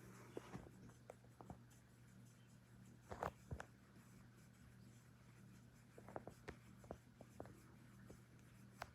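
Hampton Bay Littleton ceiling fan motor humming faintly and steadily, with scattered light clicks and ticks, a small cluster about three seconds in.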